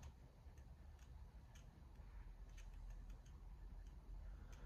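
Near silence: low room tone with a few faint, irregular ticks.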